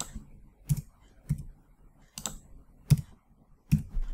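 Computer keyboard keys pressed one at a time, about six separate keystrokes spaced well apart, as a few characters of code are retyped.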